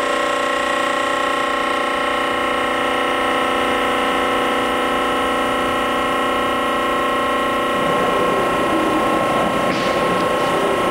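Accurpress 71008 CNC press brake's hydraulic pump and motor running with a steady multi-tone whine. About eight seconds in, a rougher hydraulic rushing joins as the ram starts moving down.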